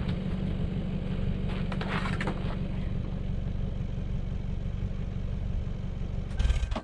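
Plow truck engine idling steadily, with a brief clatter about two seconds in.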